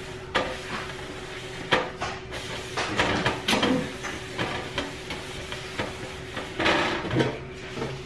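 Paper towel rubbing and squeaking against the glazed inside of a large oval black pot, with irregular knocks and scrapes as the pot is handled, over a steady faint hum.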